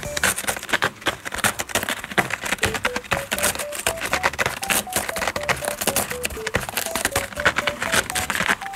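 A cat clawing at a corrugated cardboard scratcher: a fast, irregular run of scratchy rips and crackles. A light, plinking background tune plays over it.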